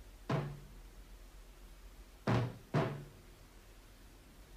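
Three knocks, each followed by a short low ring: a single one, then a close pair about two seconds later.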